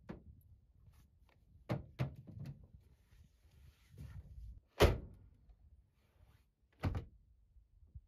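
A series of separate knocks and thumps, like something solid being shut or set down: a few light ones about two seconds in, the loudest just before five seconds, and another near seven seconds.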